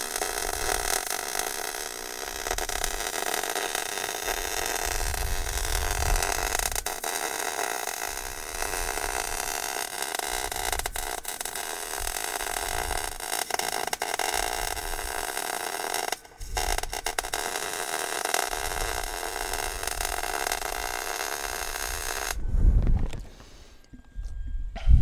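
Electric welding arc crackling steadily on the steel steering box mount and chassis. It breaks off briefly about two-thirds through, then stops shortly before the end, followed by a low thump.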